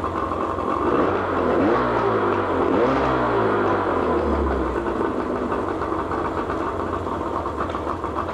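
1998 Evinrude 40 hp two-cylinder two-stroke outboard running in gear out of the water, with no load on the propeller. Its speed rises and falls a couple of times in the first few seconds, then it settles to a steady run.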